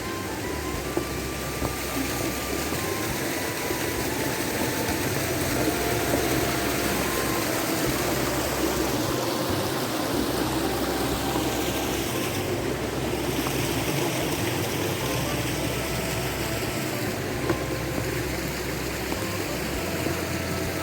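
Background music with a simple stepping melody and a bass line, over a steady rushing noise like running water.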